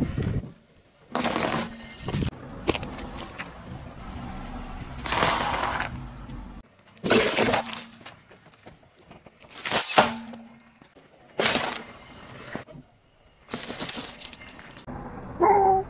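A car tyre rolls over small packaged snacks and other crunchy items one after another, crushing them with a run of sharp crunches and cracks, about six separate crushes. A short squeak comes near the end.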